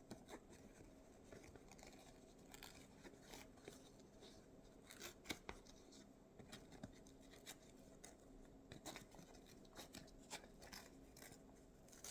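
Faint, irregular tearing and snapping of perforated cardboard cutouts being pulled off by hand.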